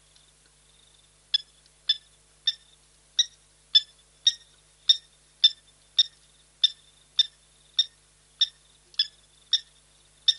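An animal repeating a short, sharp, high call at a steady pace, just under two calls a second, starting about a second in, over a faint steady high whine.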